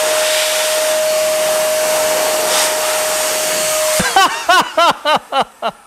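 Chemical Guys Sidekick handheld air blower running steadily, a rush of air with a steady motor whine, switched off about four seconds in. A man then laughs in a quick run of short bursts.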